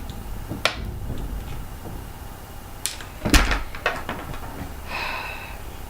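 Plastic sweet packet yanked open too fast, with a few light clicks and one loud thump a little past the middle as it gives way and the sour straps spill onto the carpet.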